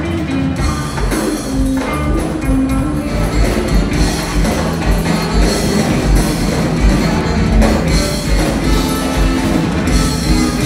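Live band playing Latin funk-rock, with electric guitar over a drum kit. The kick drum's steady beat and the cymbals come in about half a second in.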